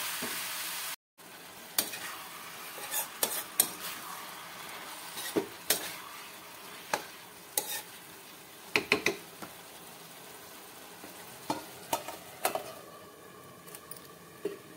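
A metal spoon stirring spinach and potatoes in a metal kadai, with irregular sharp clinks and scrapes against the pan over a steady sizzle of the vegetables frying.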